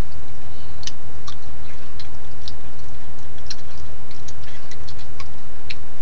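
Steady low hum and hiss of a trail camera's recording, with irregular faint ticks and clicks scattered through it as a raccoon moves about in front of the camera.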